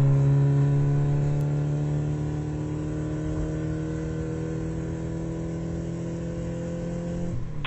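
Car engine sound effect: a steady, even engine drone as the car drives along. It eases down in loudness over the first few seconds, holds steady, and cuts off abruptly near the end.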